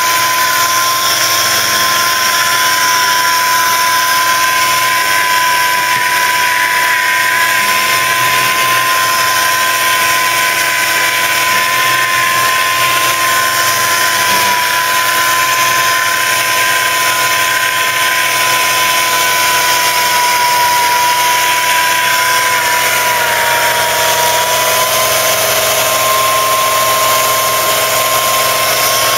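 Pneumatic orbital sander running steadily with a high whine while sanding a car's bare steel panel; the pitch sags slightly about three-quarters of the way through under heavier pressure, then picks up again.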